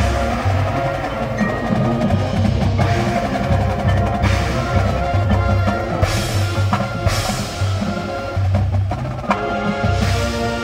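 Marching band playing a percussion-heavy passage: drums and front-ensemble mallet keyboards over sustained wind chords, with several crashes.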